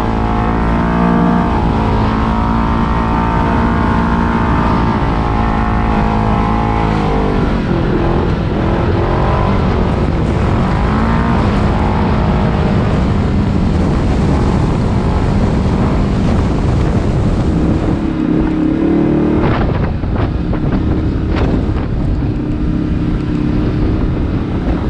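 Kawasaki KRX 1000 side-by-side's parallel-twin engine running under way. Its pitch holds steady for several seconds, then drops and climbs repeatedly as the throttle changes, with a few sharp knocks about four-fifths of the way through.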